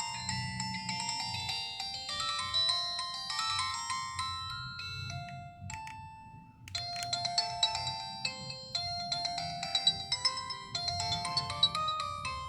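Polyphonic ringtone of a Samsung SCH-N480 mobile phone playing a quick tune of short stepped notes. The tune fades out about five and a half seconds in, and after a brief pause a different ringtone starts, about a second later.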